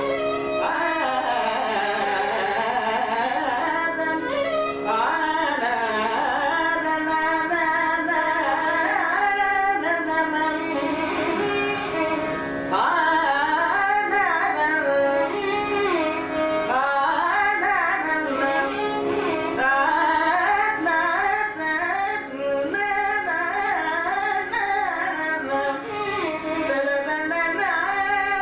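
Male Carnatic vocalist singing in raga Shanmukhapriya with heavily ornamented, sliding and oscillating pitches. A violin follows the melody, over a steady drone.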